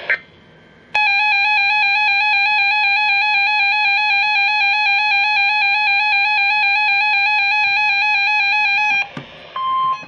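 NOAA weather radio receiver sounding its built-in alert alarm, a loud, rapid electronic beeping for about eight seconds that signals an incoming alert. It stops, and just before the end a steady single tone begins, the broadcast's warning alarm tone.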